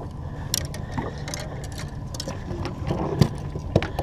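Irregular clicks and taps of hands working a hooked fish free inside a rubber landing net, the loudest about three seconds in, over a steady low rumble.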